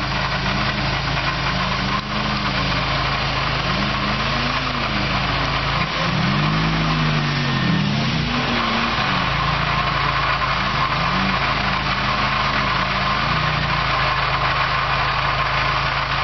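Off-road 4x4's engine revving up and down again and again under load, its pitch rising and falling every second or two.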